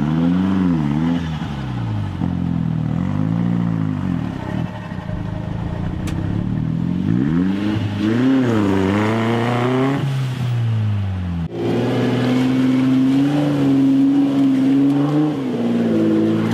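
Off-road 4x4's engine revving up and down again and again as it churns through deep mud with its wheels throwing up spray. After a sudden cut about eleven seconds in, another 4x4's engine holds high revs in the mud.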